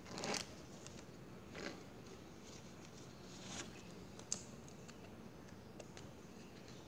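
Faint rustling and light clicks of trading cards being handled, with a few short rustles and one sharper click about four seconds in.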